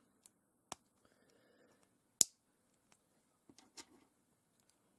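Plastic K'Nex connectors and rods snapped together by hand: a few sharp clicks, the loudest about two seconds in, with faint handling noise between.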